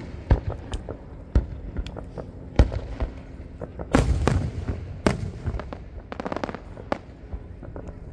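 Aerial fireworks shells bursting one after another: a string of sharp bangs, each trailing off in an echo, the loudest about two and a half and four seconds in, and a quick run of crackling pops about six seconds in.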